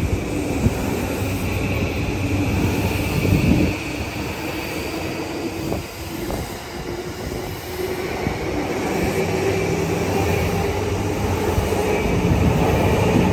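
JR East E235-1000 series electric train pulling out of a station, its traction motors whining in several tones that climb slowly in pitch as it gathers speed. Under the whine runs the steady rumble of wheels on rail.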